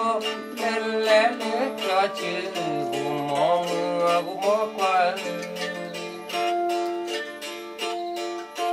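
A song from a local Karen musician: a voice singing over a plucked string instrument. The voice drops out about six seconds in, leaving the plucked instrument playing on.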